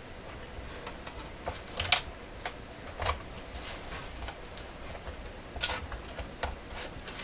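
Irregular small clicks and taps of screws and plastic and metal radio parts being handled, the two loudest about two seconds in and near six seconds.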